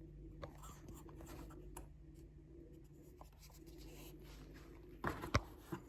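Faint handling of a plastic remote control: light rubbing and scattered small clicks over a low steady hum, with a louder cluster of clicks and rubbing about five seconds in.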